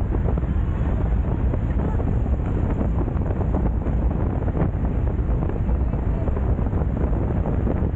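Wind rushing over the bike-mounted camera's microphone at riding speed, a steady low rumble with no break.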